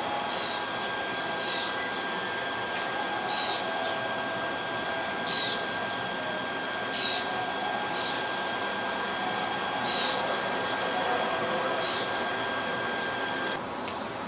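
Steady outdoor city background hum with a faint high steady tone. Short high chirps come every second or two. The tone stops abruptly near the end.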